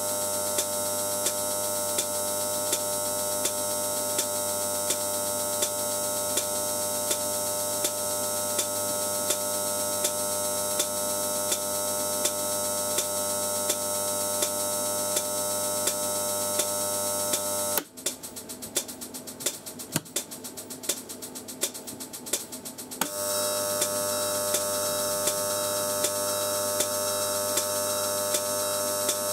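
High-voltage glow discharge between a wire electrode and the surface of an electrolyte, giving a steady electrical buzz with a regular tick. About 18 seconds in, the buzz drops away into quieter, fast crackling clicks for some five seconds, then returns.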